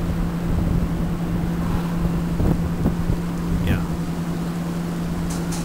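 Steady low mechanical hum of a railroad drawbridge's drive machinery as the span is lowered, with wind rumbling on the microphone.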